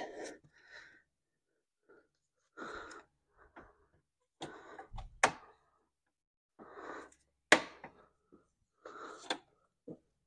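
Intermittent rustling and scraping from hands fitting plastic battery-tray parts in a car's engine bay, with a couple of sharp clicks in the second half.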